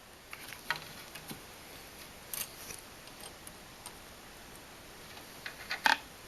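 Scattered small clicks and ticks of electrical wires being handled and twisted together in an outlet box.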